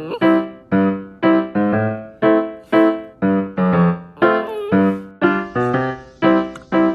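Background music on piano or electric piano: evenly paced notes struck about twice a second, each dying away before the next.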